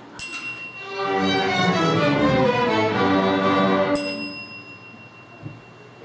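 A string orchestra plays a loud passage of held notes that swells about a second in and fades away after about four seconds. A sharp click with a steady high ring after it is heard at the start and again near four seconds.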